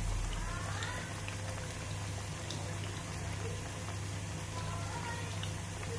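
Sliced ripe plantain shallow-frying in vegetable oil on low heat: the oil sizzles and bubbles steadily, with scattered small pops. A steady low hum runs underneath.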